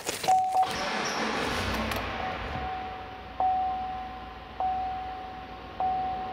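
GMC Sierra's 5.3-litre V8 cranking and catching in the first two seconds, then settling to a steady idle. A dashboard warning chime sounds, one ping about every 1.2 seconds, over the idle.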